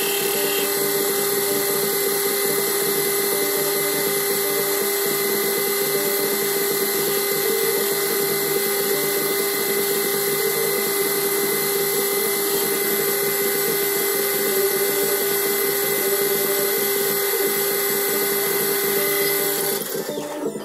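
Metal lathe running steadily with a constant whine, a parting tool cutting into an Ergal aluminium bar.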